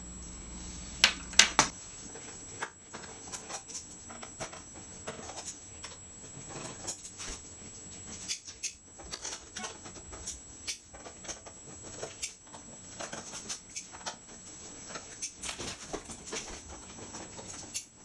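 Small Phillips #00 screwdriver backing the screws out of a 2012 MacBook Pro's aluminium bottom cover: a long run of small, irregular metal clicks and ticks, with two louder clicks about a second in.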